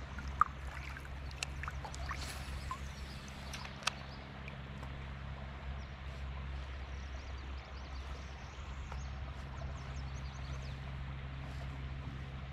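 Ambience on a kayak on a river: a steady low hum under light water hiss, broken by a sharp click about half a second in and another about four seconds in, with faint high bird chirps later on.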